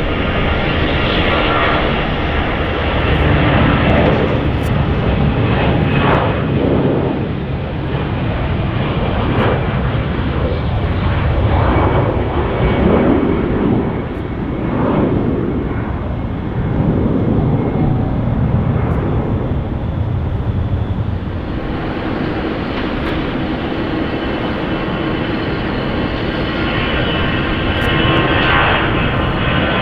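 Jet airliner engines running loud and steady, with a whooshing tone that sweeps down and up in the middle as the aircraft moves past.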